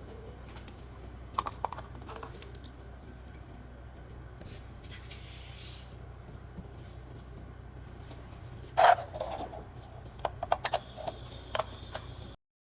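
Refrigerator hermetic compressor running with a steady low hum, with scattered handling clicks and scrapes and a brief hiss about halfway through.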